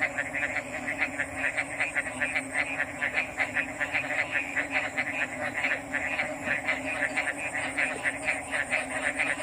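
Frogs calling in a chorus: a fast, steady train of short high croaks, about four or five a second, with no pauses.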